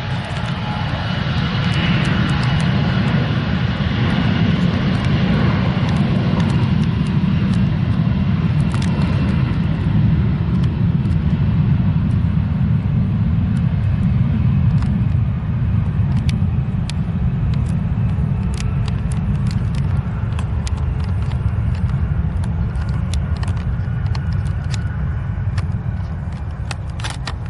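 Aircraft engines rumbling steadily, with a higher whine that is strongest in the first few seconds and then fades.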